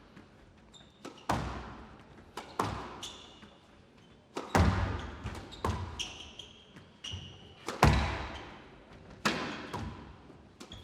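Squash rally in a hall: the ball cracks off rackets and court walls every second or two, each hit echoing, with a few short high squeaks between shots.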